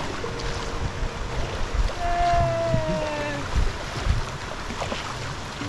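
Wind buffeting the microphone over the wash of shallow sea, with uneven low rumbles and thumps. About two seconds in, a single held pitched call sounds for about a second and a half, sliding slightly down in pitch.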